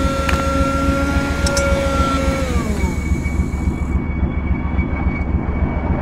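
Shoe toe-lasting machine running over a steady low factory rumble. Its motor whine holds steady, then winds down and stops about two and a half seconds in, with a couple of sharp mechanical clicks near the start.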